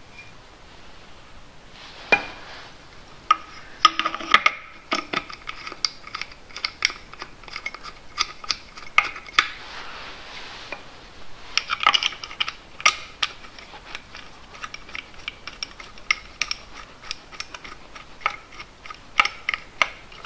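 Irregular small metal clinks and taps as a metal oil-cooler adapter plate and its bolts are handled and fitted onto an engine's oil filter housing, starting about two seconds in. The clinks are busiest in two clusters, around a third of the way through and just past the middle, each with a brief metallic ring.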